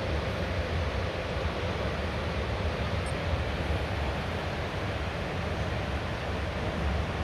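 Wind buffeting the microphone: a steady rushing rumble, heaviest in the low end.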